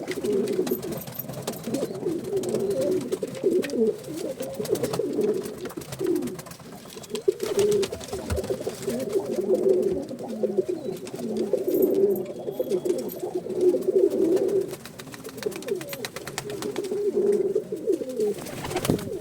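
A group of domestic pigeons cooing, many low, wavering coos overlapping without a break, easing off for a moment twice.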